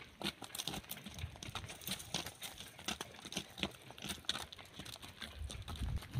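Hooves of several water buffaloes stepping on dry dirt and leaf litter: an irregular run of short crunching footfalls.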